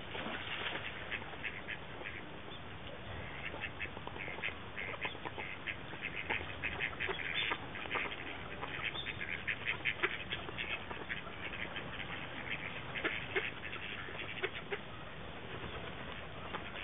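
A flock of eastern spot-billed ducks quacking and calling while they feed, many short calls in quick runs, busiest in the middle stretch.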